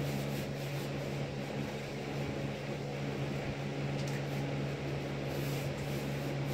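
A steady low machine hum, with hands rubbing and pressing an adhesive foam traction mat down onto a jet ski footwell to work out the air bubbles.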